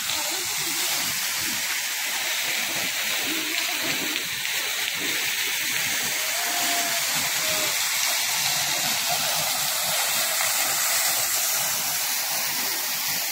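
Water jets of an ornamental fountain spraying and splashing into its pool: a steady hiss.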